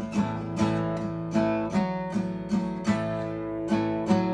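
Acoustic guitar strummed in a steady blues rhythm, about two and a half chord strokes a second.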